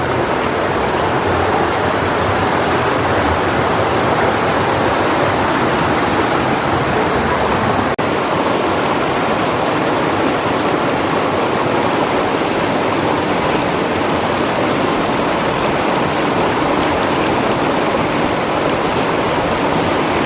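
Water of the Hasa stream running, a steady loud rush with no break except a brief dip about eight seconds in.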